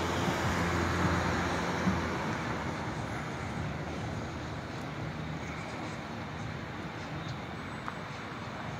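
A low engine drone over a steady outdoor hiss of distant traffic. It is loudest in the first two seconds, then slowly fades away.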